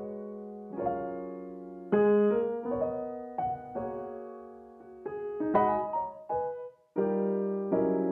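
Background piano music: a slow run of struck chords and melody notes, each one fading after it is played.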